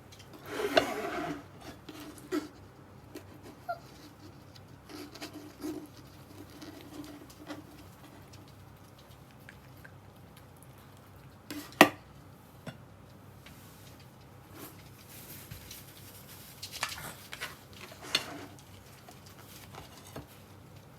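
Small dog eating, with scattered small chewing and licking clicks and claws pattering on the floor. There are short rustles near the start and again late on, and one sharp click about twelve seconds in.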